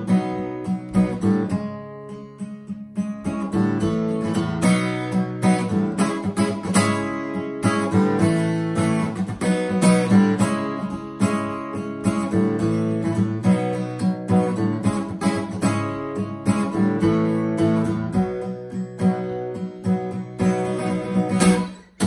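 Instrumental guitar break: acoustic guitar strummed and picked, with a steady rhythm.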